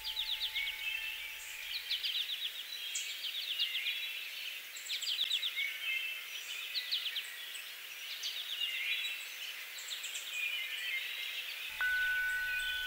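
Songbirds chirping and trilling in a busy, continuous chorus of quick repeated notes. A steady high tone joins near the end.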